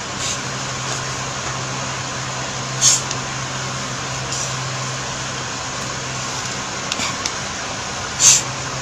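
Steady hiss and low hum of room noise, broken by two short, sharp breath sounds: one about three seconds in and one near the end.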